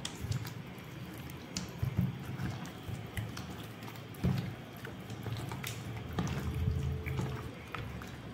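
A hand squelching raw chicken pieces around in a wet marinade in a steel bowl: irregular wet squishes with small scattered clicks.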